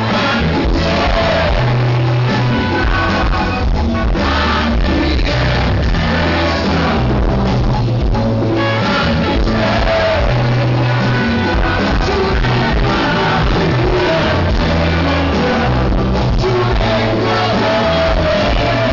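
Live rock band playing loudly with a singer, a heavy bass line changing notes every couple of seconds under the vocals.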